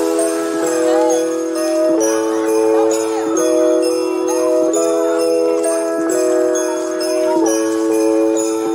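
Background music with jingle bells ringing to a steady beat over held chords that change every half-second or so.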